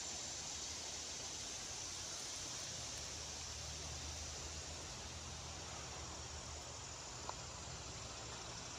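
Steady, even rush of a shallow river flowing past a stony bank.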